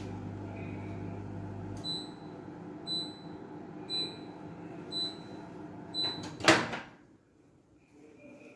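Built-in microwave oven running with its steady hum, which stops about two seconds in as the cooking timer runs out. Then five short beeps about a second apart signal the end of the cycle, followed by a loud clack as the door release is pressed and the door pops open.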